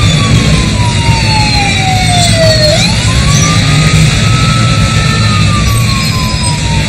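An emergency vehicle's siren wailing in slow sweeps: it falls for a couple of seconds, swings back up quickly and falls again. Underneath runs a steady low rumble of city traffic.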